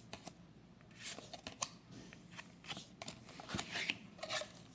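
Yu-Gi-Oh trading cards being handled and flipped through, sliding against one another in short, irregular flicks and swishes.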